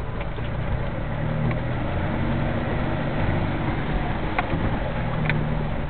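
Off-road vehicle's engine running steadily, with tyre and body noise, heard from inside the cabin while driving along a muddy dirt track. A couple of faint clicks or knocks near the end.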